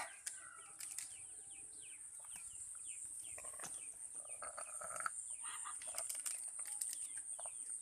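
Chickens clucking, with many short high chirps falling in pitch, over a steady high-pitched hiss.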